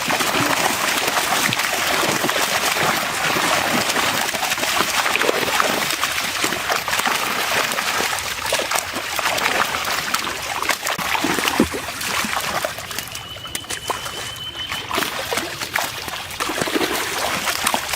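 Water splashing and trickling with irregular sloshes, as netted fish thrash and are handled in the water.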